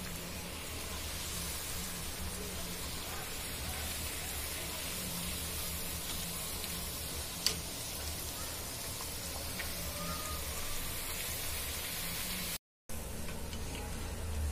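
Mathri deep-frying in hot oil in a kadhai: a steady sizzle, with one sharp click about seven and a half seconds in. The sound drops out briefly near the end.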